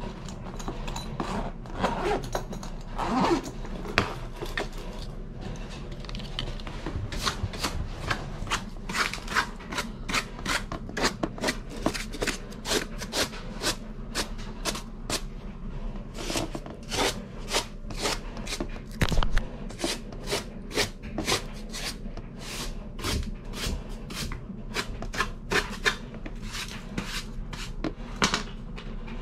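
Repeated scraping strokes of a hand scraper against the wooden frame and sill of a return-air grille opening, clearing built-up dirt and debris. The strokes come quickly, about two a second, over a low steady hum.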